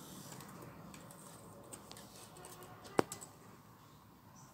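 Faint room noise with a few scattered key taps on a laptop keyboard, one sharp click about three seconds in, as an account is typed in.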